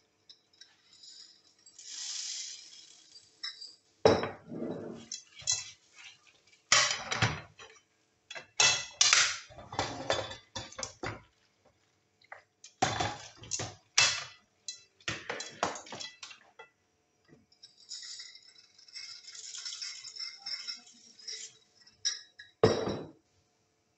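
Wooden spoon stirring food in a stone-coated sauté pan on a gas hob, knocking and clattering against the pan again and again, with stretches of hissing from the hot pan.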